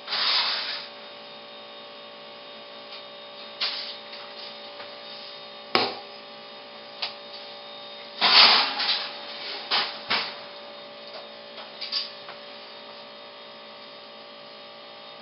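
Metal oven door and a metal baking pan clanking and knocking as a meatloaf is taken out of a gas oven and set down on the counter, over a steady electrical hum. The knocks come singly at first, with the loudest clatter about eight seconds in.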